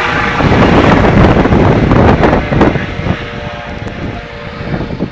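Air ambulance helicopter flying away after takeoff: rotor and turbine noise with rapid blade chop, loud at first and fading over the last two seconds as it draws away.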